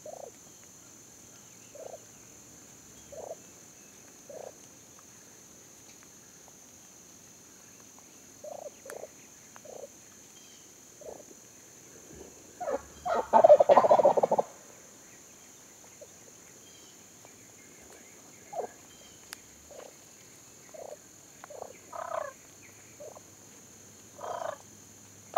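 Wild turkey gobbler gobbling once, a loud rapid rattling gobble about halfway through that lasts around two seconds. Scattered short turkey calls come every second or so before and after it.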